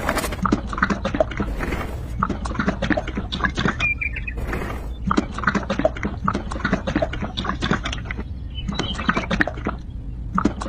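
Dense, irregular clicking and tapping of small hard objects over a steady low hum.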